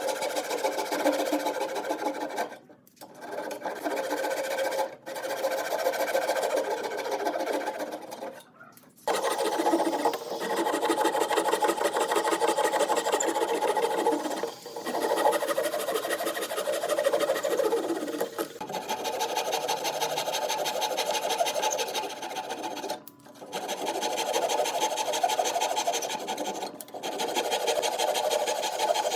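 A power tool running with a fast, even rhythm, dropping out abruptly several times and starting again.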